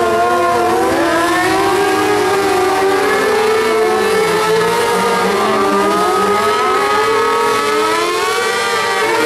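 Motorcycle engines held at high revs during a tire-smoking burnout, the pitch wavering up and down with several engine tones overlapping.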